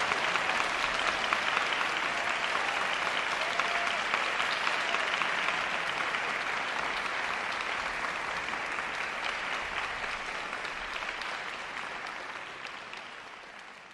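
Audience applauding, a dense patter of many hands clapping that slowly dies away near the end.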